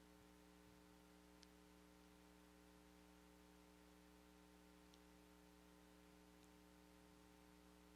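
Near silence with a faint steady electrical hum, and two faint ticks about a second and a half and five seconds in.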